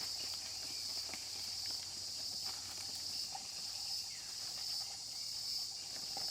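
A steady, high-pitched chorus of insects shrilling, with a slight pulsing, and a few faint light ticks now and then.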